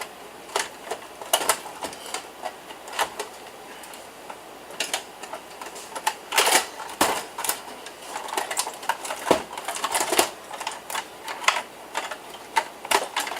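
Irregular clicks, clacks and knocks of a desktop computer tower being taken apart by hand: metal case parts, screws and components handled and set down.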